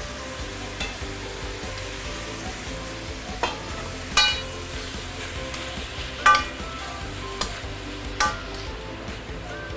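Chinese cabbage and carrot strips sizzling in a hot stainless steel pan while a metal spatula stirs them, with about six sharp ringing metal clanks of the lid and spatula against the pan, the loudest about four and six seconds in.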